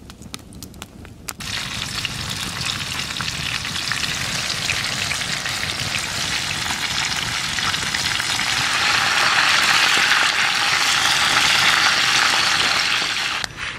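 Whole chicken frying in hot oil: a dense, steady sizzle that starts about a second and a half in, grows louder past the middle, and cuts off suddenly near the end.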